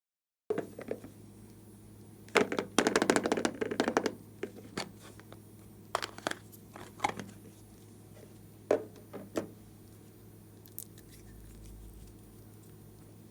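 Hands working slime: sticky clicks and crackles as it is pressed and pulled, with a dense run of crackling about two seconds in, then scattered single clicks.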